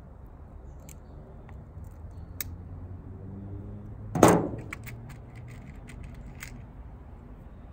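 Handling clicks from a wire-stripping and crimping tool and from crimp terminals being picked out of a plastic assortment box: a few sharp ticks, one louder short rattle about four seconds in, then a quick run of small clicks.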